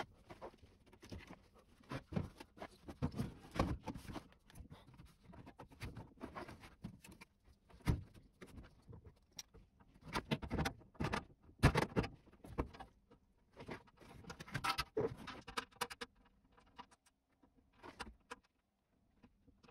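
Irregular knocks, clicks and rustling from hands and tools working at the sheet-metal casing of a ducted air-conditioner's indoor unit during a fan deck installation, thinning out near the end.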